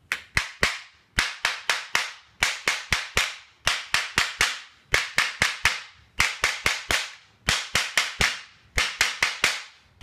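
Claw hammer tapping the metal Sizzix paddle punch to cut a shape through paper. The taps come in quick runs of four to six, each run under a second, with short pauses between. Each strike is a sharp knock that rings briefly.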